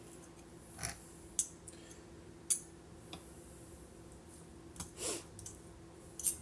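Sparse light clicks and taps of kitchen utensils against a dish, about seven scattered over several seconds, over a faint steady hum.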